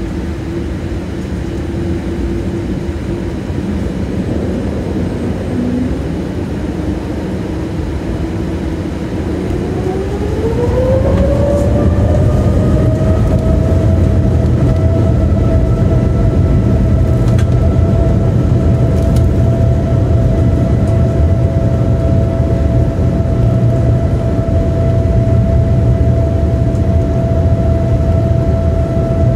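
Boeing 787-8 turbofan engines heard from inside the cabin, spooling up to takeoff thrust: a steady whine climbs in pitch about ten seconds in and then holds high, over a low rumble that grows louder as the takeoff roll begins.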